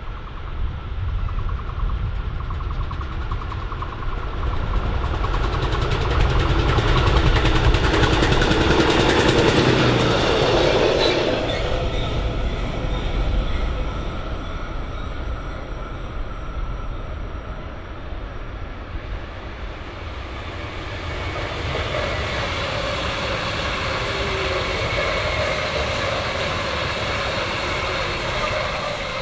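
Trains running past on the line: a loud pass-by with a heavy rumble and wheel-on-rail noise that swells and peaks about eight to eleven seconds in, then a second rise of rail noise with a faint steady whine over it in the last third.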